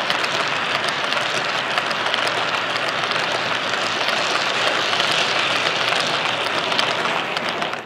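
H0 scale model freight wagons rolling past on the track: a steady, dense clatter of small metal wheels on the rails, peppered with rapid clicks from the rail joints.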